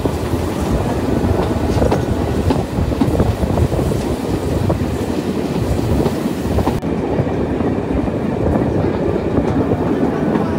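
The Öchsle narrow-gauge steam train running along the track: a steady rumble with irregular knocks from the cars.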